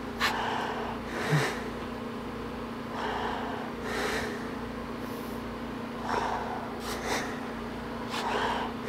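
A person breathing close to the microphone: short in-and-out breaths in pairs, about every three seconds.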